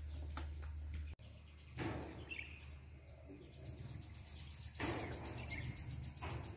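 Outdoor ambience with an insect trilling high in fast even pulses, about nine a second, starting about three and a half seconds in, and a few short bird chirps. A steady low hum runs under the first second and stops at a cut.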